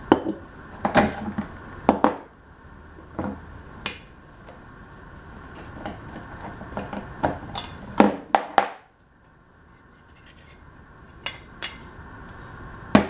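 Metal parts of a small weed eater engine (cylinder, crankcase and flywheel) clinking and knocking against each other and a wooden workbench as they are handled and pulled apart. A string of sharp, irregular knocks, the loudest about eight seconds in and at the very end.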